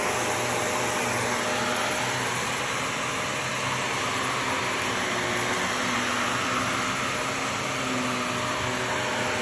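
Shark bagless upright vacuum cleaner running steadily as it is pushed over carpet: a continuous motor hum under the rush of suction.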